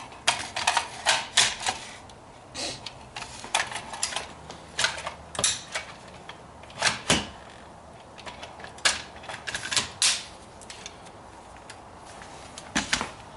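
A series of sharp metallic clicks and clacks, irregularly spaced and some in quick clusters, from an AR-pattern rifle and its magazine being worked by hand.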